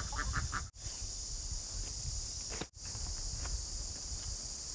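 Outdoor rural ambience: a steady high insect drone over a low wind rumble, with ducks quacking briefly at the start and scattered footsteps and light knocks on gravel. The sound drops out twice for a moment.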